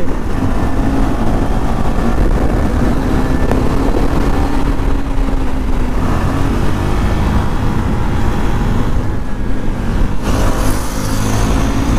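KTM Duke 390's single-cylinder engine running at road speed, with wind rumbling on the microphone. The engine note grows brighter about ten seconds in as the bike speeds up.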